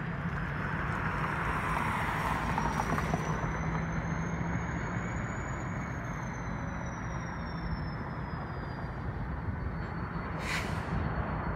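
BNSF diesel locomotive running steadily as it moves a cut of railcars through the yard, a constant low engine hum under general rumble. A short hiss about ten and a half seconds in.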